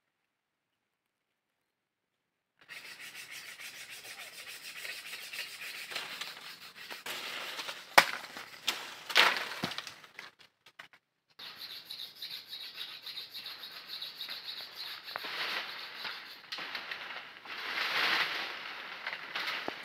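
Leaves and branches rustling and rubbing as a man climbs up into a tree. A sharp crack comes about 8 s in, with a louder rustle just after. The sound starts only a couple of seconds in and drops out briefly near the middle.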